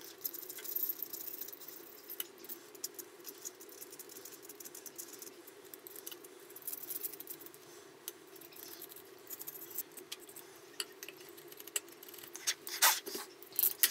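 Scalpel blade scraping the paint coating off a knife blade: faint, irregular scratchy strokes and small clicks, over a steady low hum.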